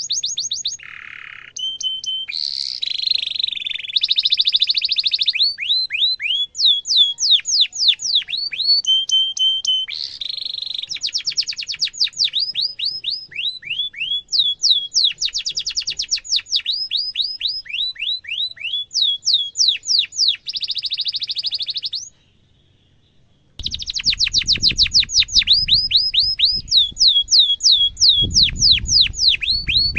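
A domestic canary singing vigorously in a long, unbroken song of rapid, high, downward-sweeping whistled notes, about five a second, alternating with buzzy trills. The song stops for a second or so about two-thirds of the way through. When it resumes, a low rumble runs underneath it.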